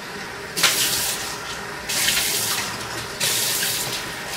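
Kitchen tap water running in three short spurts, each starting suddenly and lasting under a second.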